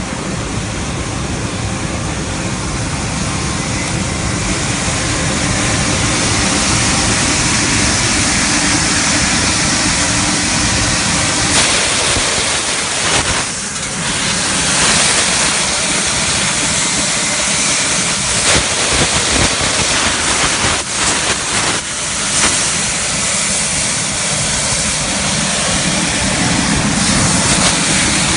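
Vacuum excavator truck sucking up soil through its large suction pipe: a loud, steady rush of air with the drone of the truck's blower, broken by a few short knocks and a brief dip about halfway.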